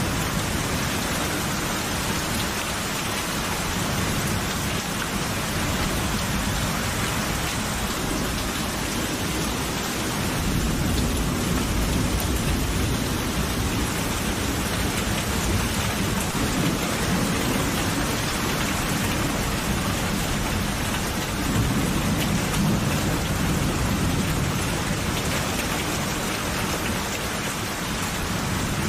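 Steady heavy rain falling on surfaces, with low rolling thunder that swells and fades several times, strongest around ten to fourteen seconds in and again past twenty seconds.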